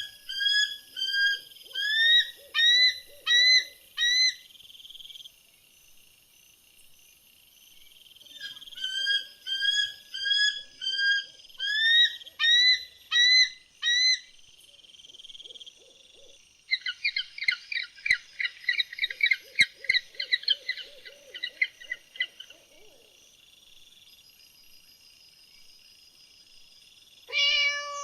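A bird calling: series of short rising whistled notes, about two a second, in two bouts, then a fast chattering run of notes. A different, lower call begins right at the end.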